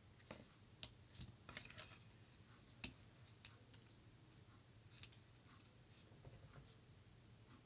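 Faint, scattered clicks, taps and brief rustles of small craft tools being handled and set down on a tabletop: a glue tube and a wooden stick put down, a rhinestone pick-up pencil picked up. The clicks bunch in the first few seconds and again about five seconds in.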